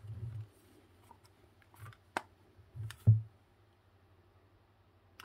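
Handling noise from a hard plastic electrical test adapter being turned over in the hands: a few soft knocks, with two sharp clicks about two and three seconds in.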